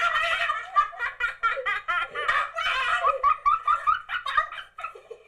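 A person laughing hard in quick, high-pitched repeated peals.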